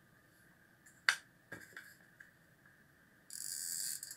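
A couple of sharp clicks from a hot glue gun and the crystal chamber being handled, about a second in, then a loud, steady hiss near the end.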